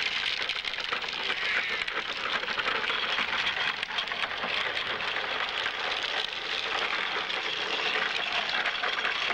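Hard plastic wheels of a child's low ride-on tricycle (Big Wheel style) rolling on a concrete sidewalk: a steady, dense crackling rattle.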